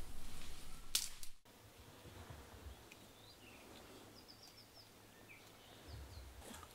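Forest ambience: rustling in the undergrowth with one sharp crackle about a second in. It then drops suddenly to a quiet background with a few brief, high bird chirps.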